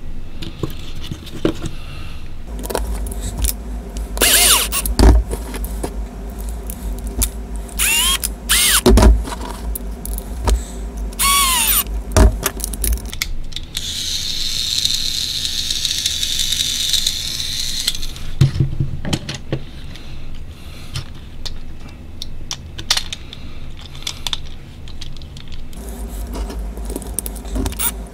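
Clicks, taps and scrapes of small plastic and metal parts as a Trackmaster toy train's motor and gearbox unit is handled and fitted back together, with a steady high whir for a few seconds past the middle.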